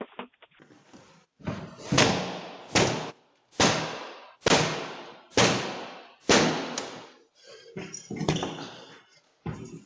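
A door being struck hard again and again, about ten heavy slamming blows roughly one a second, each ringing out briefly.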